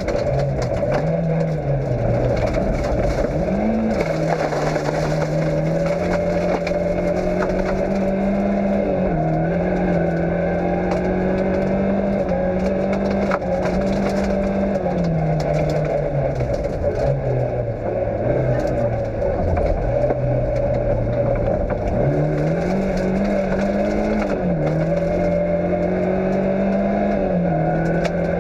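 Fiat Cinquecento rally car's engine heard onboard at racing pace, its revs rising and falling repeatedly through gear changes and corners. A steady crunching and scraping of loose surface under the tyres runs beneath it.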